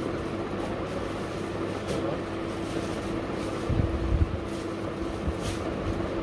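Steady background hum with a constant low tone, and a few low thuds about four seconds in as cloth is handled and laid on the counter.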